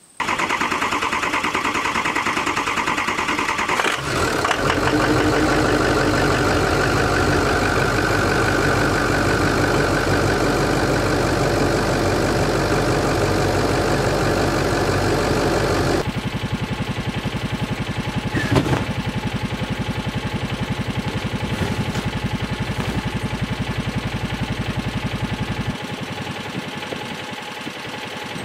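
Pickup truck's engine running at a steady idle after sitting unstarted for over a month. The sound changes suddenly about four and sixteen seconds in, and near the end it becomes quieter and thinner.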